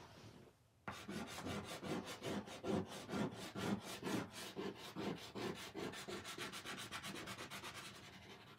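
Stick of chalk scrubbing back and forth on a chalkboard in quick strokes, several a second, shading in a section of a drawing. It starts about a second in and grows fainter near the end.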